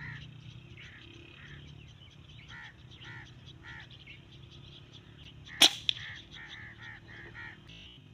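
Birds calling over and over in short, evenly spaced notes, broken about five and a half seconds in by a single sharp shot from a scoped M22 hunting rifle, with a smaller crack right after.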